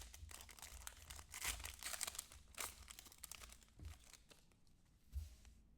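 Foil wrapper of a trading card pack being torn open and crinkled: a run of faint crackles that thin out after about three seconds.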